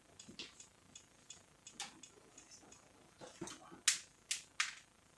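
Screwdriver working screws out of a Canon iR-series copier's metal frame: a run of small clicks and ticks, with three sharper clicks close together near the end.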